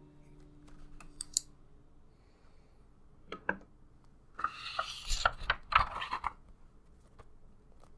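Sketchbook paper page being turned over, a crackly rustle lasting about two seconds from about halfway in. It follows a few light clicks and taps.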